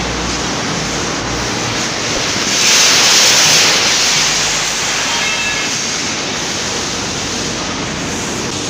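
Container truck running, under a steady rushing noise of wind on the microphone. A louder hiss swells for about a second around three seconds in.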